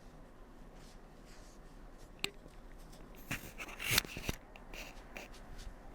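Soft rustling and handling sounds of hands and clothing on a chiropractic treatment table, with a few brief clicks, the loudest about four seconds in.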